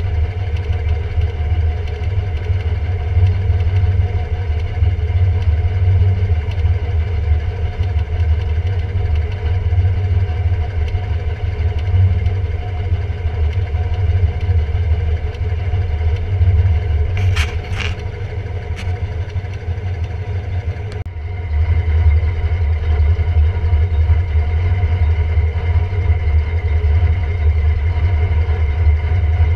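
Toyota 4x4's engine idling steadily with a low rumble, heard from inside the cab. A few sharp clicks come about two-thirds of the way in, and the sound changes abruptly shortly after.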